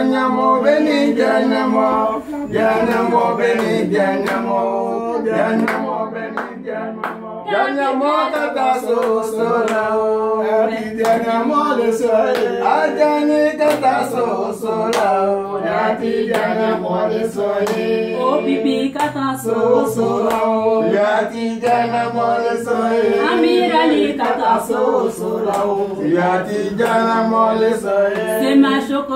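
Several voices singing a song together, unaccompanied, over a steady held low note.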